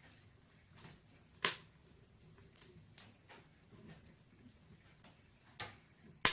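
Wood burning in a fireplace, crackling with scattered sharp pops. The loudest pops come about a second and a half in and near the end.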